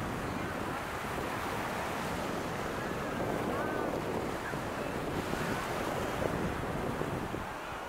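Steady beach ambience: surf washing in, with wind buffeting the microphone.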